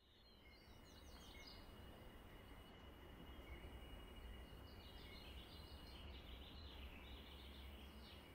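Faint rural ambience fading in: birds chirping now and then over a low rumble, with a thin steady high tone.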